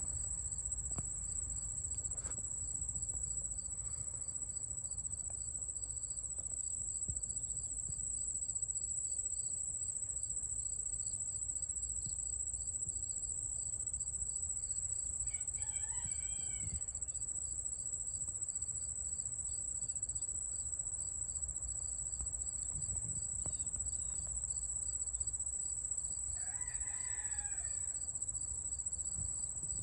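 A steady, high-pitched insect chorus with a second, pulsing insect call beneath it. A rooster crows twice, about halfway through and again near the end.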